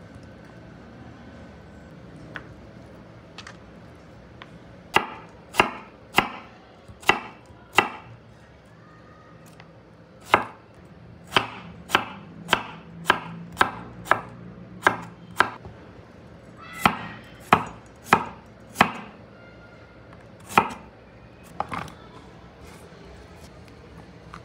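Knife chopping on a cutting board: about twenty sharp chops at an uneven pace, in short runs with pauses, starting about five seconds in.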